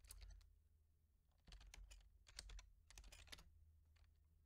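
Faint keystrokes on a computer keyboard: a few short clusters of clicks, over a faint low hum.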